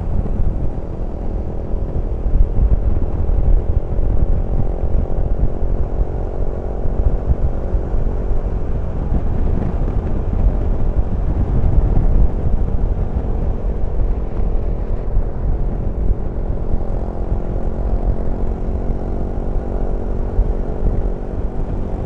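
Suzuki V-Strom's V-twin engine running steadily at cruising speed, mixed with loud wind rush on the microphone.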